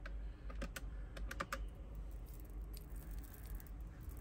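Faint handling noise: irregular light clicks and taps, several close together in the first second and a half and fainter ones after, over a low steady hum.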